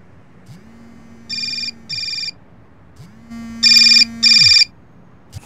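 Electronic bedside alarm going off in pairs of short, high electronic rings over a low buzz that winds up and down with each pair. The second pair, about three and a half seconds in, is much louder than the first.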